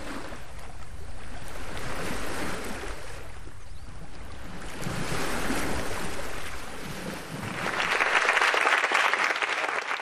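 Sea surf breaking and washing up a sandy beach: a steady rush that swells and ebbs about three times, loudest near the end.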